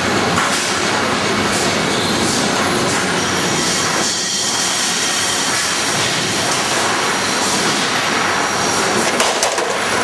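Dubbed train sound effect: a diesel train running, with wagons clattering along the rails and a faint high steady tone through the middle. A few sharp clanks come near the end.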